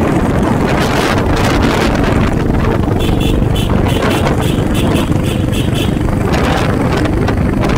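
Royal Enfield Bullet single-cylinder motorcycle running at road speed, with heavy wind rushing over the microphone. A quick run of short, high chirps, about three a second, sounds for a few seconds in the middle.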